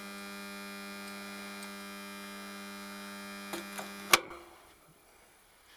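Topweld 140 transformer stick welder (buzz box) giving a steady mains hum while switched on with no arc struck. About four seconds in there are a few light clicks, then a sharp click as its switch is turned off, and the hum stops at once.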